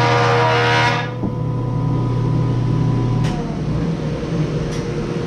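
Music stops about a second in, leaving a wood planer's motor running steadily. Its sound changes about three seconds in, as the cut on the board comes to an end.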